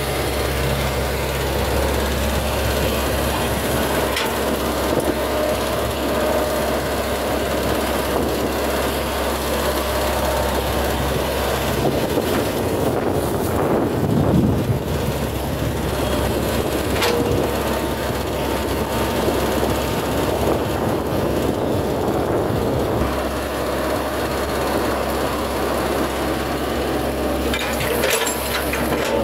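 Hitachi crawler excavator's diesel engine running steadily as it works, with hydraulic and machine noise over a low hum. The low engine note shifts between about 12 and 23 seconds in, with a louder moment near 14 seconds.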